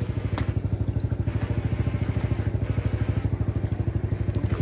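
A small motor running steadily with a rapid, even pulse of about ten beats a second, with a single faint click near the start.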